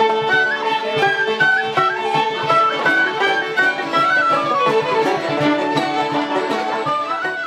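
Irish traditional session tune: fiddles and a tin whistle playing a quick melody together over a strummed acoustic guitar.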